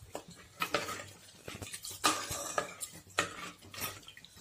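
Steel ladle stirring thick masala in a clay pot, scraping and clinking against the pot's wall in irregular strokes.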